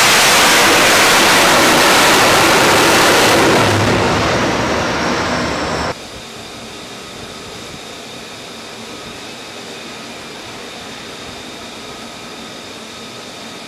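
F-35C's F135 turbofan jet engine, loud and rushing as the fighter passes low overhead, fading after about three and a half seconds. About six seconds in the sound cuts abruptly to a quieter, steady distant jet noise with a faint high whine.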